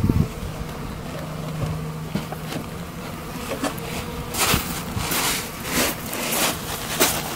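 Honeybees from a freshly installed package buzzing around the hive entrance, a steady low drone. From about halfway through come several short rustling crunches.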